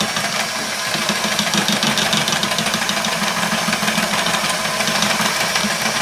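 Electric hand mixer running steadily, its twin beaters whisking pancake batter in a plastic bowl.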